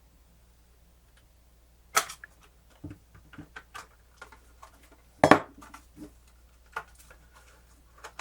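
Scattered sharp clicks and knocks of the hard plastic parts of a portable cassette player being handled and worked loose during disassembly. There are about eight of them after a quiet first two seconds, and the loudest comes about five seconds in.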